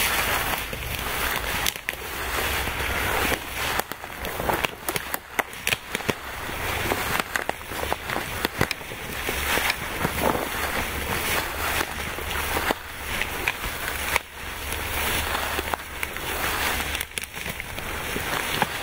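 Footsteps wading through tall dry grass: stems and dry leaves swishing and crackling against legs and boots with each stride.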